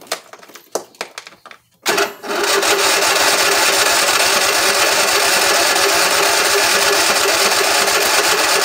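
A few clicks, then, about two seconds in, the electric starter cranks the riding mower's Briggs & Stratton V-twin engine with the choke on: a loud, steady cranking with an even, fast pulse, held for about seven seconds without the engine catching.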